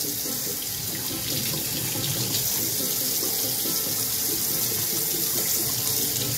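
Kitchen tap running steadily into a stainless steel sink, the stream splashing over a wet, scalded quail and the hands rubbing its feathers off.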